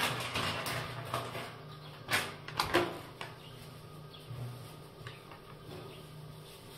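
Hand-cleaning a ceramic toilet: a sponge and cloth rubbed over the bowl, seat and lid, with a few sharp knocks in the first three seconds, then softer wiping. A faint steady low hum runs underneath.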